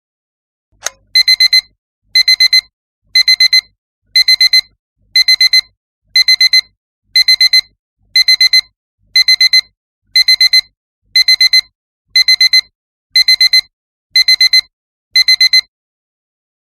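Digital alarm clock beeping in quick bursts of four high, steady beeps, one burst each second, about fifteen times, after a single click at the start; it stops near the end.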